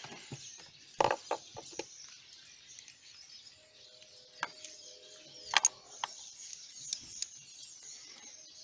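Sparse metal clicks and clinks of a socket and ratchet extension being fitted onto a newly installed oil pressure sensor, with a quick cluster of clicks about a second in and single clicks later on.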